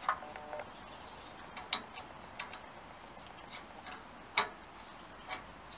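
A handful of sharp, separate clicks and taps from hands working metal parts on a bare Honda XL250S motorcycle frame, the loudest about four and a half seconds in.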